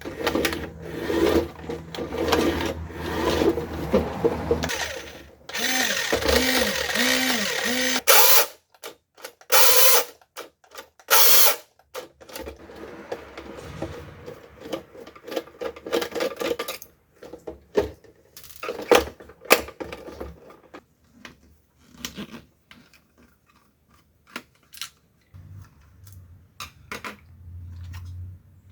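A remote control car's small electric motor and plastic gearbox whirring in several bursts, the longest in the first eight seconds. It is followed by scattered clicks and taps of small plastic parts being handled.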